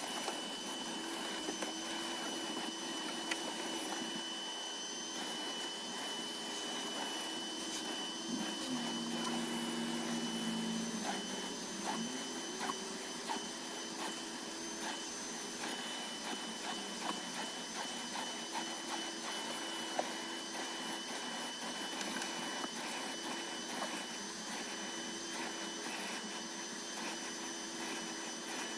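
Vacuum cleaner running steadily on a car's interior, a continuous rushing hiss with a high, steady whine and scattered small clicks and knocks as the nozzle works over the surfaces.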